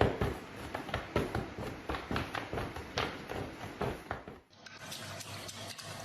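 A quick run of light taps, about three or four a second, stopping abruptly about four and a half seconds in; after that only a steady low hiss with faint ticks.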